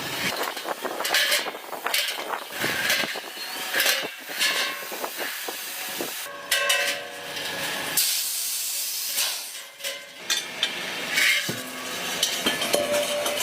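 Repeated bursts of hissing a second or so long, mixed with short knocks and clanks.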